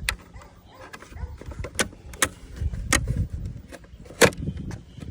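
Sharp plastic clicks and knocks as a pry tool works the clips of a car side-mirror cover, with handling rustle between them; the loudest knock comes near the end.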